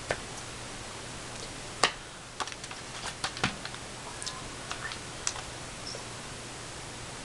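A few irregular light clicks and taps from hands moving close to the microphone, the sharpest about two seconds in and a quicker cluster in the middle, over a steady hiss.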